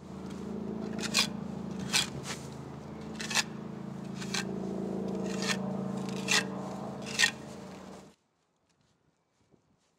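Steel trowel scraping over fresh cement repair mortar as a fillet is worked into a wall-floor angle: about eight short, sharp scrapes a second or so apart over a steady low hum, all stopping suddenly near the end.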